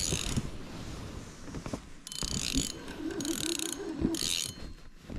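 Fishing reel whirring in short bursts, three of them about a second apart in the second half, while a hooked fish is being played in.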